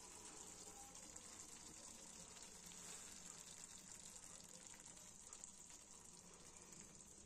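Near silence: a faint, steady high hiss with a few soft ticks.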